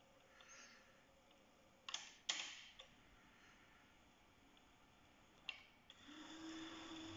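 Kenwood KX-74R cassette deck's transport mechanism clicking as its play buttons are pressed: two clicks about two seconds in and another near five and a half seconds. About six seconds in a steady whir with a low hum starts, the deck spooling tape fast instead of playing, the fault caused by its rotten drive belt.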